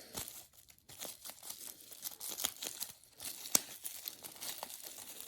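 Packaging crinkling and rustling in irregular crackles as small boxed accessories are handled.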